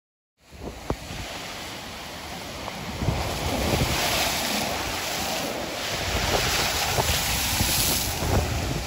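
Rough storm surf breaking on a sandy beach, with wind buffeting the microphone; the sound starts abruptly about half a second in and swells and eases as the waves break.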